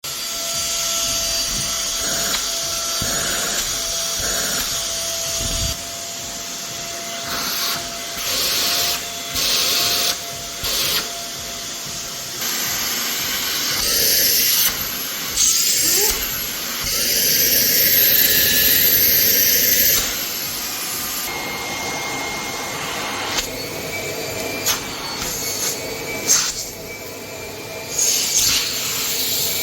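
Cordless stick vacuum cleaner running: a steady motor whine over a loud suction hiss. The pitch and loudness jump abruptly every few seconds, with louder stretches partway through.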